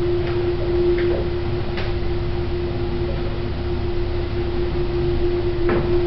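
Modern replacement passenger lift, with a steady hum at one pitch over a low rumble and a few faint knocks.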